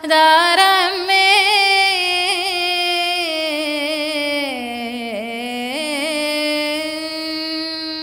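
A single voice chanting a Tamil devotional verse. One syllable is drawn out into a long, ornamented held note that sinks lower about five seconds in and then climbs back.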